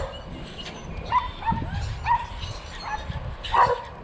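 An animal's short yipping calls, repeated roughly once a second, with one louder, fuller call about three and a half seconds in, over a steady low rumble.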